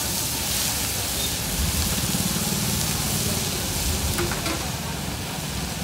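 A large heap of boiled noodles and shredded vegetables frying on a big hot iron griddle: a steady sizzling hiss, with a low rumble underneath.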